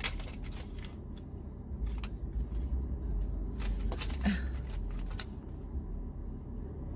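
Steady low rumble of a car idling, heard from inside the cabin, with a few scattered light clicks and a brief vocal sound about four seconds in.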